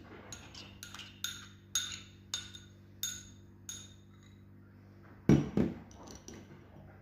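A metal kitchen utensil clinking against a glass bowl, about seven light ringing taps roughly every half second that die away. A little after five seconds in come two dull knocks close together.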